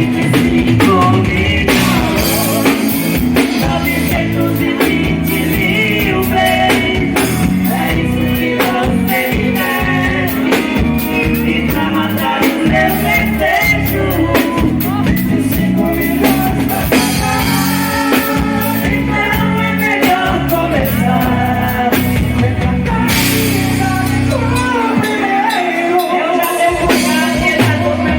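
Live band music with a woman singing over drums, bass and guitar at a steady beat. Near the end the drums and bass drop out for a couple of seconds, leaving the melody.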